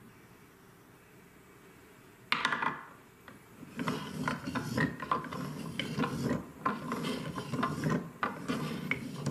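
A ball lands with a sharp clack about two seconds in, then rolls back and forth down a plastic Trix Track switchback ramp: a continuous rolling rattle with frequent clicks as it hits the turns.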